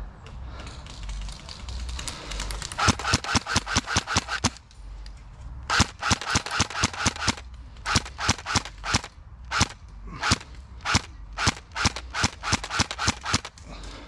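Airsoft guns firing: rapid bursts of sharp shots begin about three seconds in, then come in shorter bursts and single shots with brief pauses between them.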